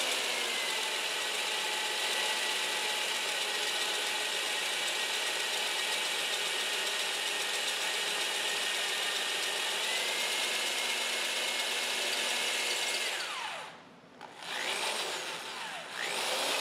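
Handheld electric drill running steadily as its bit cuts down through a lifter bore into the valve guide of a cast-iron Model T Ford engine block, lubricated with cutting fluid and fed with light pressure. About thirteen seconds in it winds down and stops briefly, then spins back up.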